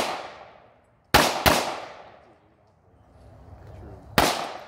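Glock 22 pistol in .40 S&W fired outdoors: a quick pair of shots about a second in, then a single shot near the end, each echoing and dying away.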